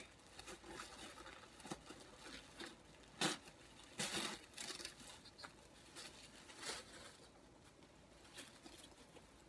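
Paper wrapping around a bundle of clothes being torn and rustled open by hand: short, irregular crinkles and rips, the loudest about three and four seconds in.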